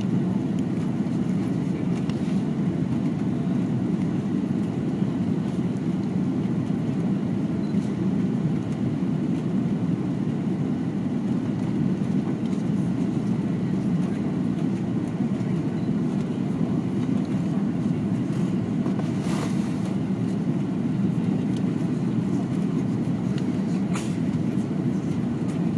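Steady cabin noise of an airliner on approach, with engines and airflow heard from a window seat over the wing, a low, even rush. A few faint clicks come in near the end.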